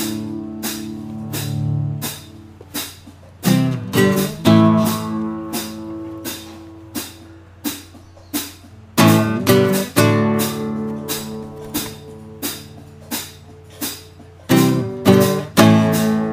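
Guitar music, no singing yet: chords strummed and left to ring, with single notes picked in between, in a repeating pattern.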